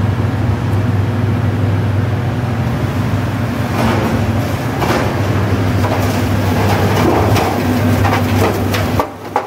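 Gear-driven rollformer running: a steady low motor-and-gearbox hum with scattered metallic knocks and rattles from the roll stands, the level dipping briefly near the end.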